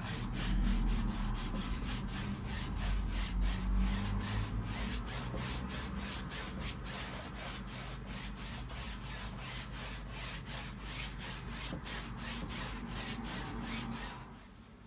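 Bristles of a wide flat brush scrubbing oil paint across a stretched canvas in quick, repeated back-and-forth strokes, blending white into the sky. The strokes stop about a second before the end.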